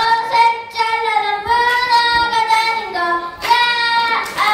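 A young boy singing into a handheld microphone, holding long sustained notes with short breaks between phrases.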